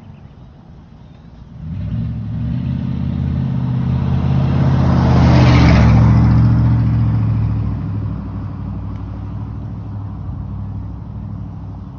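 A motor vehicle driving past close by: its engine hum swells from about a second and a half in, is loudest around the middle with a rush of road noise, then fades away.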